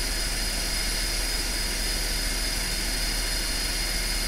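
Magirus fire engine running its water pump, a steady engine drone.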